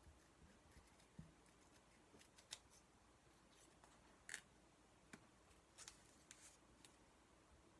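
Faint snips of scissors cutting paper by hand, short and irregularly spaced.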